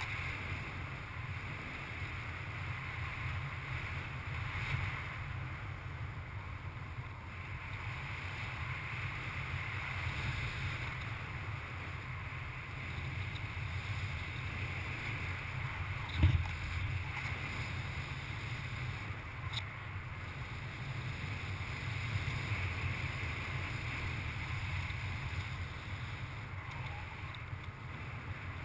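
Steady rush of airflow over the microphone of a camera on a paraglider in flight, with a single short thump about 16 seconds in.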